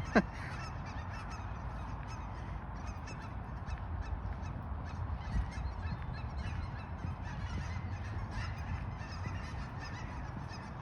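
A large flock of waterfowl in a field honking and calling together in a dense, continuous chorus. One loud call slides down in pitch just after the start.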